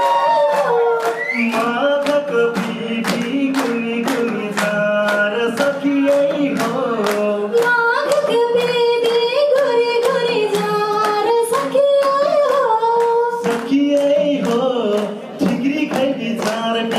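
Live Tharu folk song: male and female voices singing a melody over a steady beat of madal hand-drum strokes.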